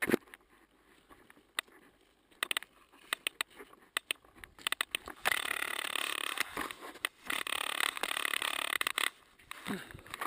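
Handling noise of a camera being picked up: scattered knocks and scrapes on its body, then a few seconds of cloth rubbing over it from about five to nine seconds in.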